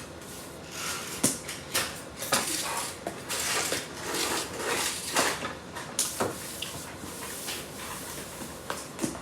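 Tape being picked at and peeled off a package: short crackling rips among clicks and taps of handling.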